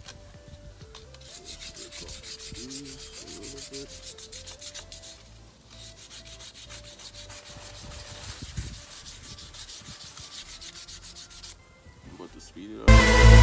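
Quick, rhythmic hand rubbing strokes on the brake rotor and caliper, a scratchy scuffing like hand sanding. The strokes are strongest in the first half and lighter later. Near the end, loud electronic music cuts in.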